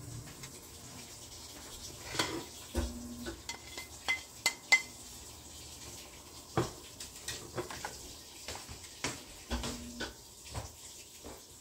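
Kitchen utensils knocking and clinking against a stainless steel saucepan as vegetable soup is stirred, in scattered taps, with a few sharp ringing clinks about four to five seconds in.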